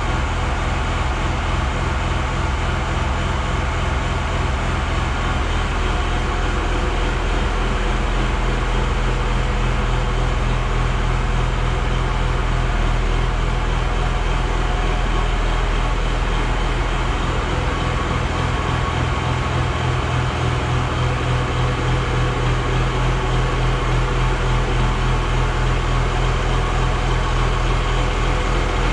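White 2-155 tractor's Hercules diesel engine running steadily at idle. The engine carries an internal noise and runs a little off, which the owner takes for something wrong inside the engine.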